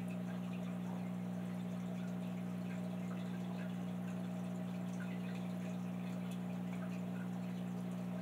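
Water trickling and dripping in a large 150-gallon fish tank, over a steady low hum.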